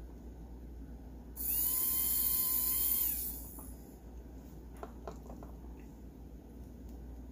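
The tiny electric motor of a Hot Wheels Sizzlers car spinning up to a high-pitched whine for about two seconds, then winding down, working now that its brushes touch the commutator. A few light clicks follow.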